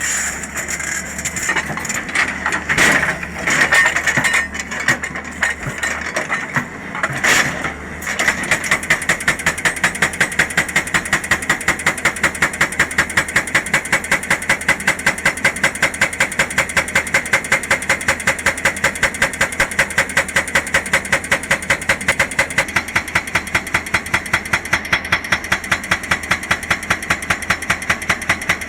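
Excavator's hydraulic rock breaker working on hard rock over the running diesel engine. For the first several seconds there are irregular knocks and scrapes, then the hammer settles into steady, even blows at about three a second.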